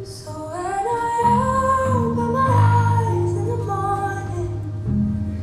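A song starts: a woman's voice sings long, gliding held notes over guitar, and low bass notes come in about a second in.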